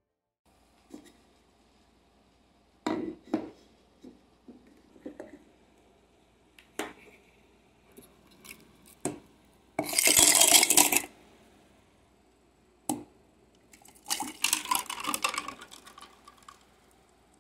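A plastic tumbler and a glass bottle being handled on a tabletop, with scattered knocks and clinks. A louder rush lasts about a second near the middle. Near the end, bottled mocha coffee drink pours from a glass bottle into a plastic cup with ice.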